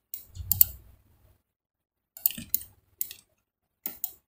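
Computer mouse and keyboard clicks: scattered short, sharp clicks with quiet gaps between, several close together about two seconds in.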